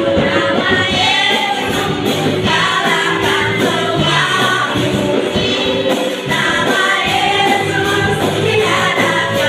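Live praise-and-worship band playing: a female lead singer with a backing singer over keyboard, electric guitar and bass guitar, with a steady beat.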